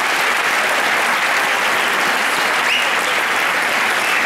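Audience applauding steadily, a dense even clapping, with a brief rising whistle about two-thirds of the way through.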